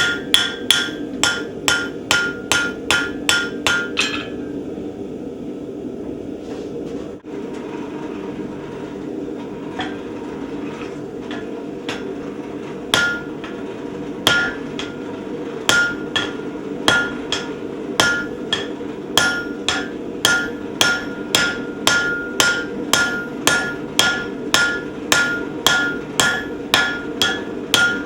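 Little Giant 50-pound trip hammer drawing out a steel bar. It strikes in a steady run of about three blows a second, each with a metallic ring, over a constant hum from the running machine. About four seconds in the blows stop for several seconds, with only a few scattered light strikes, then the steady hammering resumes.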